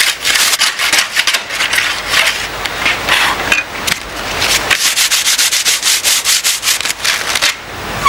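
Surfboard being sanded by hand with a sanding block: rapid back-and-forth rasping strokes, with a brief pause about halfway through and another near the end.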